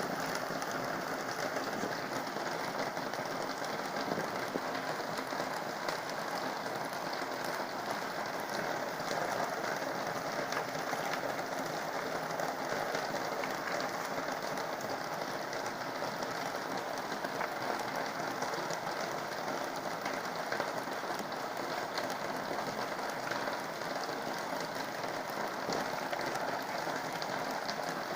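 Heavy rain falling steadily, an even hiss with many fine drop ticks.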